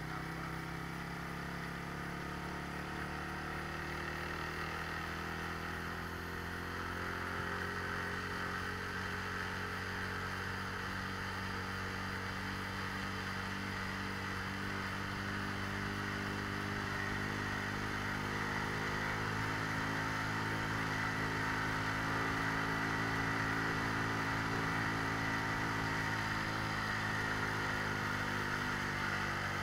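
Motorcycle engine running under way, heard from on board the bike, its pitch drifting gently up and down with throttle. Wind and road noise grow a little louder after about seven seconds.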